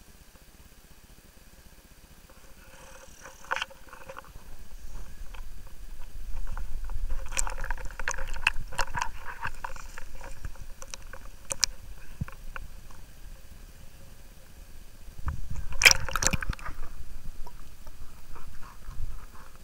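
Water sloshing and splashing against a boat, with a low rumble and scattered sharp splashes. It is quiet at first, grows busier after about five seconds, and has one loud rush of water about three-quarters of the way through.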